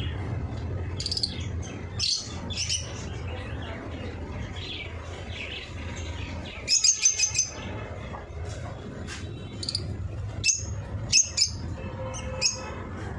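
Eye-ring lovebirds chirping: short, high-pitched chirps in scattered bursts, with a quick run of several chirps about seven seconds in.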